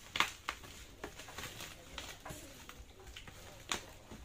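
Bubble wrap around a parcel crinkling under the fingers as the tape on it is picked at, with a few sharp pops: a loud one just after the start, two more within the first second, and another near the end.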